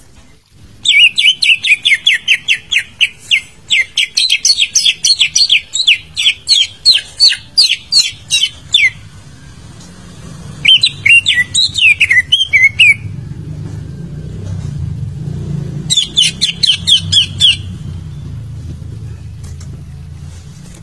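Leafbird (cucak ijo) song: a fast run of repeated clear chirps, about four a second, lasting several seconds, then a shorter twisting phrase, then another brief run. A low rumble sits behind it in the second half.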